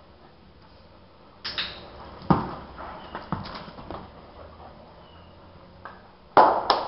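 A dog moving about on a tiled floor, with a few sharp knocks and clicks at uneven intervals. The loudest comes about two seconds in, and a close pair of clicks comes near the end.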